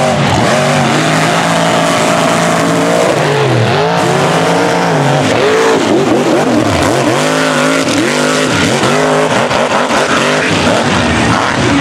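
Mega truck engine running wide open, its pitch swinging up and down again and again as the throttle is worked.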